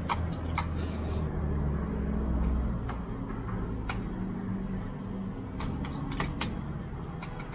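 A steady low rumble with slowly shifting pitch, with scattered light clicks and taps over it and a short hiss about a second in.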